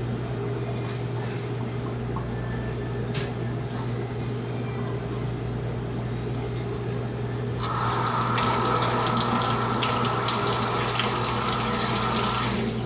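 Steady low hum, then a water tap runs for about five seconds, starting just past halfway and shutting off near the end.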